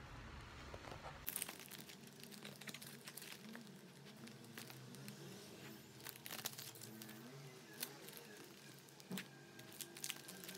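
Plastic sleeves of a postcard album crinkling and rustling as the pages are flipped, with scattered light clicks of cards and plastic.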